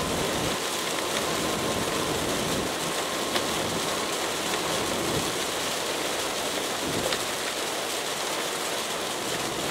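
Steady rain and wet-road noise heard from inside a car's cabin at about 80 km/h: rain hitting the windshield and tyres running on the wet road.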